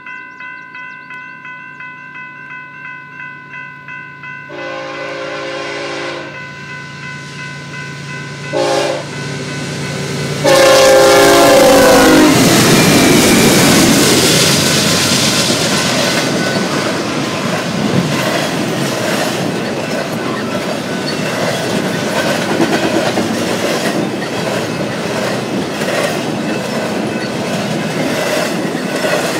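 Bell ringing steadily. About four seconds in, the lead BNSF ES44DC locomotive's horn starts blowing the grade-crossing pattern: long, long, short, then a very loud long blast that drops in pitch as the engine passes close by. The double-stack train then rolls by with loud, steady wheel and rail clatter.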